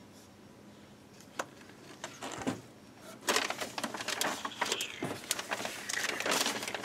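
Paper and packaging rustling and crinkling as items are handled and rummaged through, starting about three seconds in after a quiet stretch with a single click.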